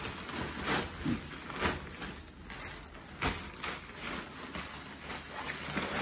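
Rustling of nylon tent fabric and its carry bag as the folded tent is pressed down into the bag, with a few brief sharper scrapes and knocks.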